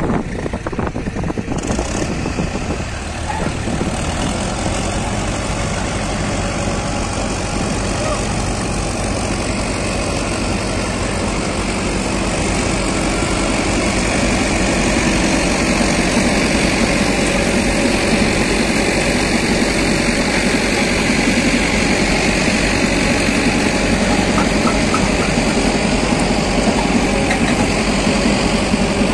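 Farmtrac 6055 tractor's diesel engine running steadily under load as it drives a PTO-powered soil loader, mixed with the loader's conveyor working and earth pouring off it into a trolley. The noise grows a little louder a few seconds in, then holds steady.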